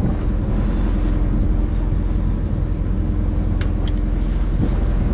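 A fishing boat's engine running steadily, a low rumble with a constant hum, with two short clicks about three and a half seconds in.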